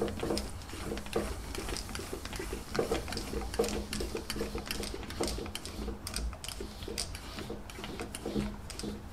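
Metal lathe tapping an M8 thread through a Rawlplug De-Speeder held in the tailstock drill chuck. A quiet mechanical whir runs under irregular light clicks and ticks.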